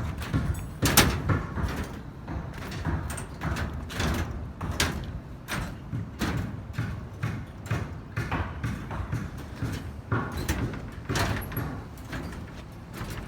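A run of irregular knocks and bangs, about one or two a second, over a steady low rumble.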